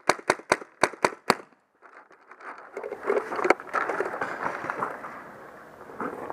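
Paintball marker firing a steady string of shots, about four a second, six in the first second and a half. After a brief dropout, a stretch of rustling and crackling with scattered knocks follows.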